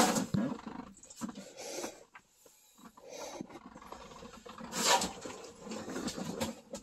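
Irregular rustling and small knocks from a handheld camera being moved around a truck cab, with a louder rustle about five seconds in.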